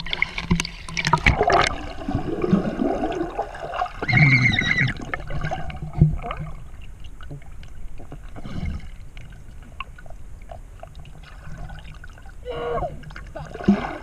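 Water splashing at the surface for the first couple of seconds, then muffled underwater gurgling and sloshing with scattered knocks, heard from below the surface of a pond.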